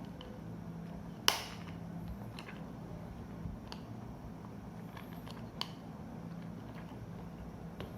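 Handling of a digital multimeter: one sharp click about a second in, then two fainter clicks, over a low steady hum.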